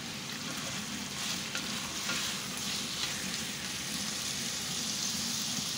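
Chicken pieces frying in desi ghee and their own released juices in a steel pot, a steady sizzle.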